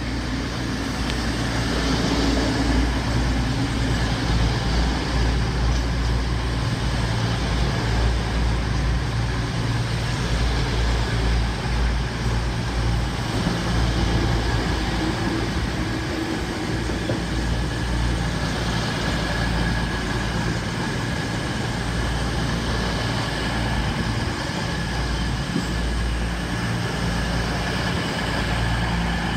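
Class 222 Meridian diesel-electric multiple unit arriving at the platform, its underfloor diesel engines running with a steady low rumble that builds over the first couple of seconds and then holds.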